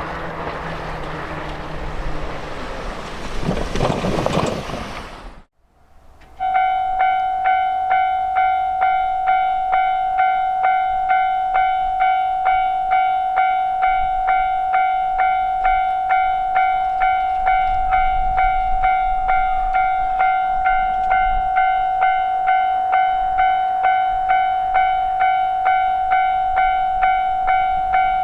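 A train passing over a level crossing, which cuts off suddenly about five seconds in. After a second of quiet, a level crossing's electronic warning bell starts ringing its 'kan-kan' in a steady, even pulse.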